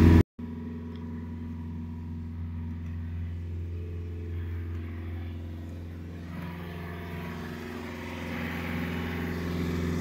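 Sailboat's engine running steadily while motoring, a low, even drone that swells slightly near the end.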